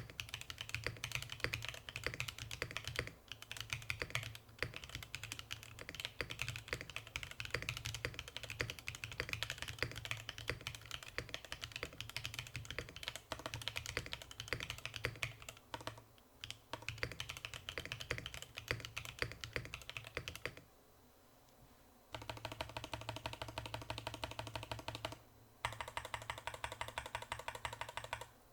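Fast, continuous typing on a custom mechanical keyboard with lubed Haimu x Geon Black switches in an aluminium plate, a steady run of key clicks. It stops for about a second and a half about three quarters of the way through, then resumes.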